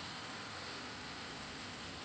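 Steady hiss of falling rain, even throughout.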